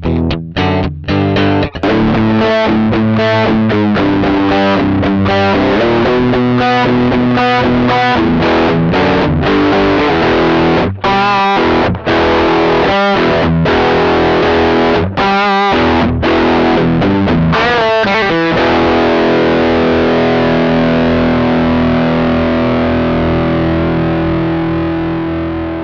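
Electric guitar, a Telecaster, played through the Midnight Drive overdrive pedal: distorted chords and riffs with short breaks. About two-thirds of the way in, a final chord is held and sustains, starting to fade near the end.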